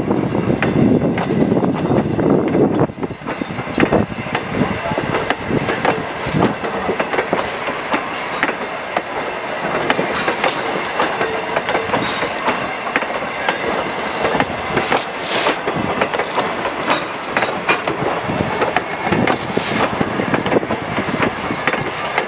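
Wooden-bodied passenger coaches of a heritage train rolling slowly past at close range: a steady rumble of the wheels on the rails, with frequent clacks as the wheels cross rail joints. The rumble is heaviest in the first few seconds.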